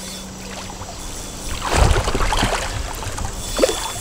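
Water splashing and sloshing at the surface, starting about a second and a half in and lasting around a second and a half, as a hooked common carp is drawn in toward the landing net in shallow river water.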